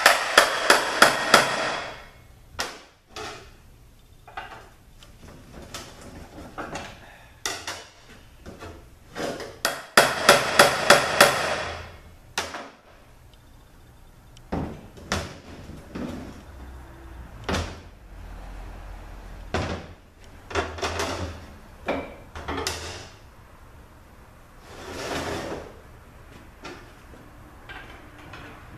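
Two quick runs of even hammer blows on a 6F35 transmission case, one at the start and one about ten seconds in, striking it to break the bell housing free from its locating dowels. Scattered single knocks and clunks of metal parts come between and after.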